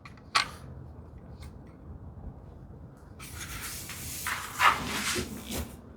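A knock about half a second in, then from about three seconds a long-soled hand plane shaving the edge of a wooden drawer side, a rasping hiss with a few louder swipes near the end.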